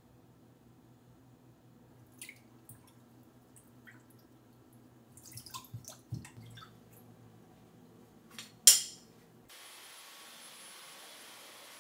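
Wet towels being stirred with a wooden spoon in a stainless steel sink of water: soft drips, small splashes and light clicks, with one sharp splash or clatter near the end. It then cuts abruptly to a steady faint hiss.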